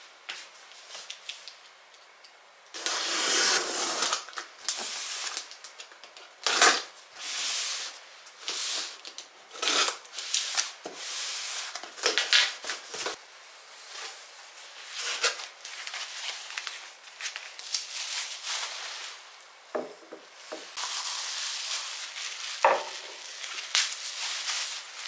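Cardboard box and its packing being handled: a rasp about three seconds in, then knocks, crinkles and rustles as things are lifted out. Near the end comes a longer stretch of rustling as bubble wrap is pulled off a porcelain dish.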